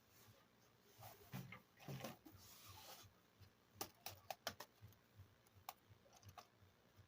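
Faint handling of small plastic toy kitchen pieces: soft rustling about a second in, then a quick cluster of sharp light clicks near the middle and one more click a little later.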